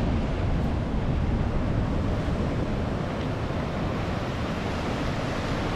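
Ocean surf breaking and washing onto a sandy beach, a steady rushing noise, with wind rumbling on the microphone.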